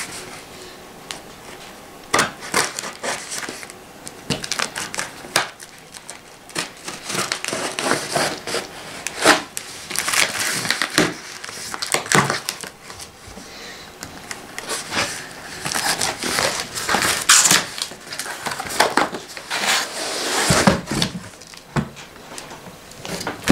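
Cardboard shipping box being opened by hand: irregular scraping, crinkling and tearing of plastic packing tape and cardboard flaps, busiest in the middle and towards the end.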